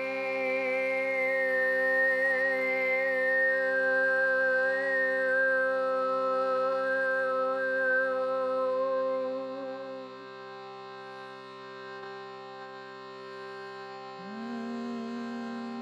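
Meditation drone music: many steady held tones sounding together, with a high wavering tone sliding slowly downward over the first several seconds. The music drops quieter about ten seconds in, and a new low tone swells in near the end.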